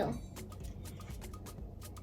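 Quiet background music with light, fast ticking running through it.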